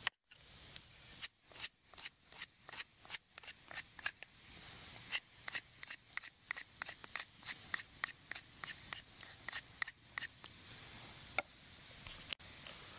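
Campfire crackling and popping: sharp irregular pops, several a second, over a soft hiss.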